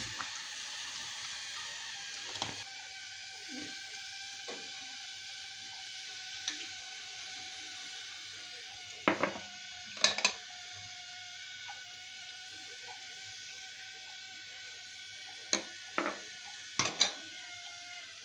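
Steady hiss of a gas stove with a pot of sütlaç (milk rice pudding) boiling on it, broken by sharp clinks and knocks of glass dessert bowls and a ladle: a few about nine to ten seconds in, and a cluster around sixteen to seventeen seconds.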